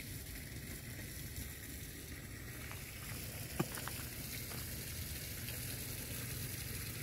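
Steady outdoor background hiss over a low rumble, with one sharp click about three and a half seconds in.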